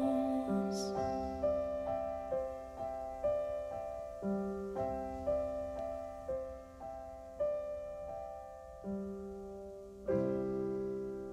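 Background music: a slow, gentle piano melody of single notes about two a second, closing on a fuller, louder chord about ten seconds in.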